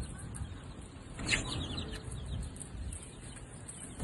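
A single short chirp from a chick about a second in, over a low steady rumble.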